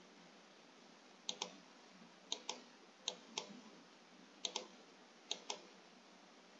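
Faint pairs of sharp clicks, five pairs at irregular intervals of about a second, over a low steady hiss.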